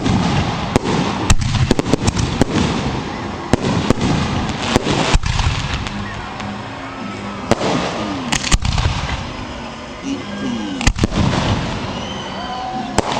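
Aerial fireworks display heard at close range: an irregular rapid series of sharp bangs from shells, over continuous crackling.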